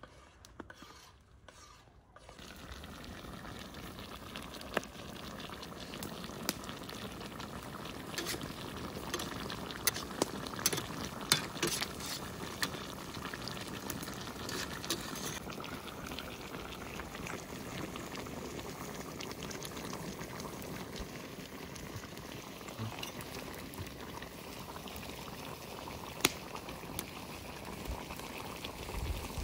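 Turkey necks boiling in tomato juice in a pot, a steady bubbling with scattered pops that starts about two seconds in.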